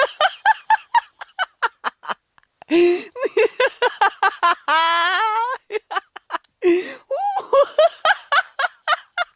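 A person laughing hard: runs of quick, high-pitched giggles, three runs in a row with short breaks between them.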